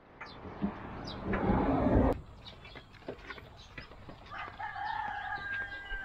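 A rooster crowing once, one long call from about four and a half seconds in, over footsteps on a concrete path. About a second in, a loud rush of noise lasts for about a second.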